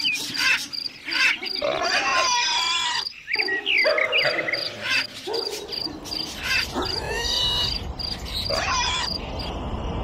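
A cricket chirping in a steady pulsing trill, with a run of varied animal calls rising and falling in pitch over it. Near the end the calls stop and a low steady rumble begins.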